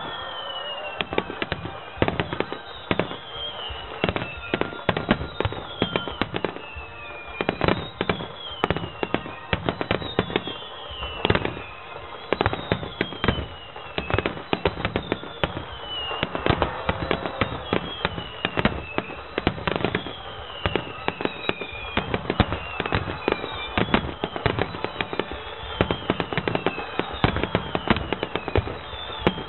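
Fireworks display: a dense, continuous run of shell bursts and crackling reports. Through it runs a high whistle that falls in pitch, repeating about once a second.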